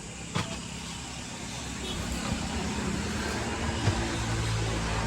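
An engine hum grows louder over the last few seconds and settles into a steady low drone, with a few sharp knocks.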